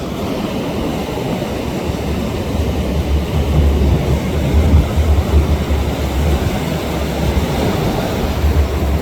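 Wind buffeting the microphone over the wash of ocean surf: a loud, steady low rumble that swells and eases.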